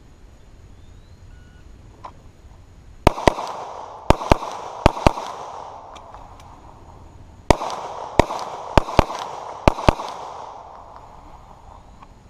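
9mm pistol firing 115-grain steel-cased Winchester USA Forged rounds in quick pairs: six shots starting about three seconds in, then after a short pause six more, each shot trailing off in an echo.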